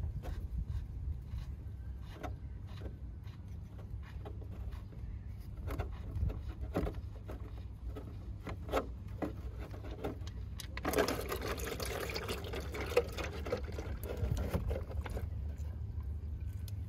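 Small clicks and taps of a drain plug being unscrewed by hand and of plastic against the catch container, then, about eleven seconds in, a rush of splashing as gear oil begins streaming out of a DSG DQ200 7-speed gearbox's drain hole into the plastic container.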